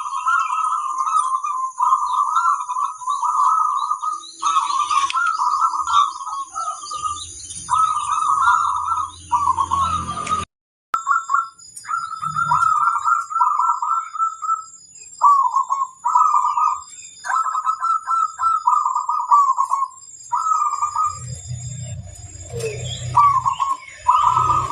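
Zebra doves (perkutut) cooing: repeated trilling coo phrases with short pauses between them. The sound drops out briefly about ten seconds in.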